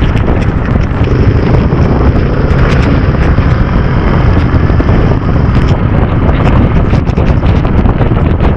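Loud, steady wind rush on the microphone of a motorcycle riding at speed, with the bike's running noise underneath.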